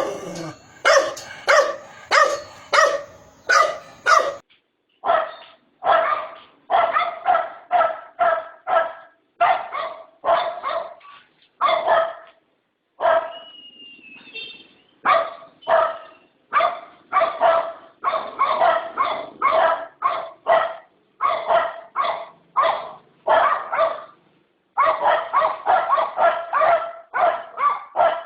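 A dog barking over and over in short, loud barks, about two a second, with brief pauses between runs.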